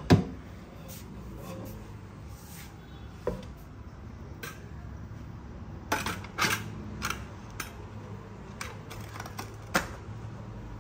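Metal clicks and knocks of a pressure cooker being handled: a sharp knock at the start as the pot is set down, then scattered clicks, thickest in the second half, as its stainless-steel lid is fitted and locked shut.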